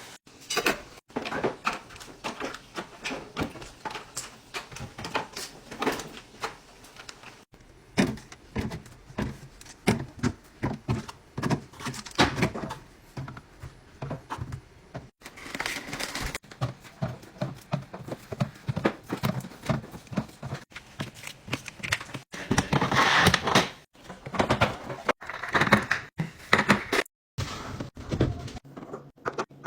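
A string of knocks, clicks and rustles from food containers and packages being handled and put away, with fridge drawers and doors opening and closing.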